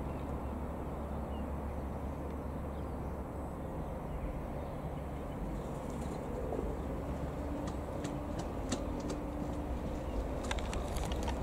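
Single-engine Piper PA-28-180 Cherokee's four-cylinder Lycoming piston engine droning steadily as the plane flies past overhead, with a few sharp clicks near the end.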